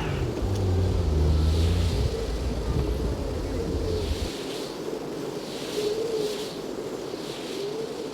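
Wind blowing, with a heavy low rumble that drops away about four seconds in.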